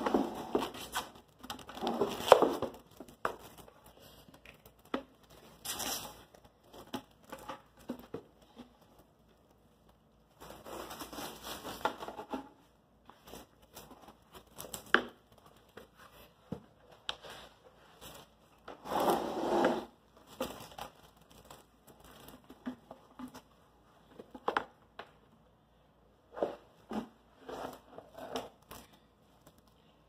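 Plastic stretch wrap being pulled off a hand-held roll and wound around a wooden birdhouse, crinkling and crackling in irregular bursts of a second or two, with scattered sharp taps in between.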